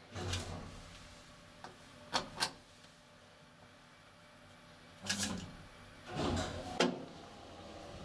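Mechanical clicks and clunks from a small passenger elevator and its controls: two sharp clicks about two seconds in, then two heavier clunks around five and six seconds in, the second ending in a sharp click. A faint steady noise slowly rises near the end.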